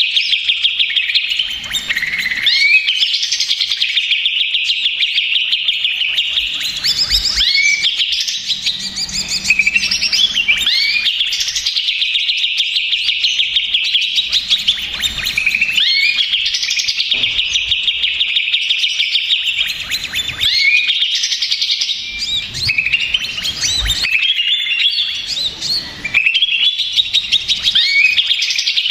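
Cucak ijo (greater green leafbird) singing without pause: a busy, noisy stream of rapid trills and chattering notes broken by quick rising and falling whistled phrases.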